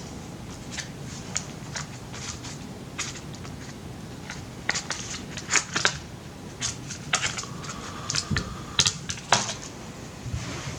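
Irregular light clicks and taps of plastic and metal parts being handled as a replacement laptop hard drive is fitted into its bay, busier in the second half.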